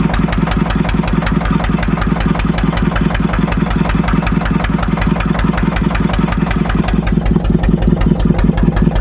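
Small fishing boat's engine running steadily while trolling, with an even, rapid chugging beat.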